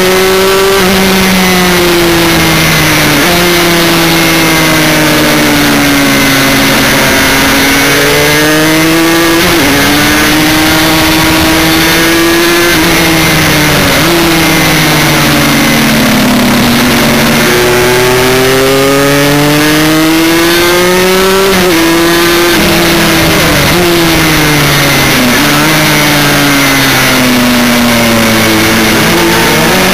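Aprilia Extrema 125's single-cylinder two-stroke engine at high revs, heard from onboard the bike. The pitch keeps climbing and falling, with several sudden drops as the rider changes gear.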